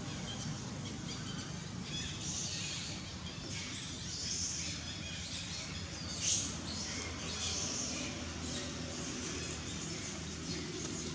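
Birds chirping now and then in short high calls, over a steady low background hum.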